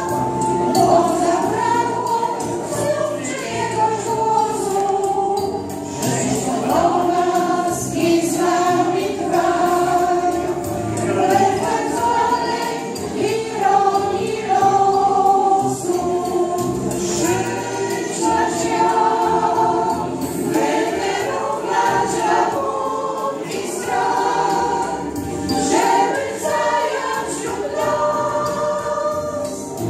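Women's choir singing a Polish Christmas carol (kolęda) in several voices, accompanied by an electronic keyboard.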